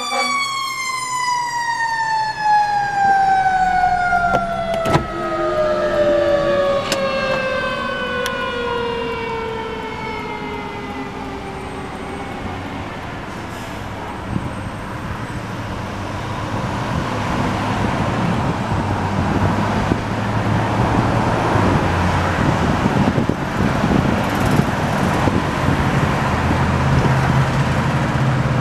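A fire engine's Federal Q mechanical siren winds down, its pitch falling smoothly over about twelve seconds as it coasts to a stop. Road traffic noise then takes over and grows louder toward the end.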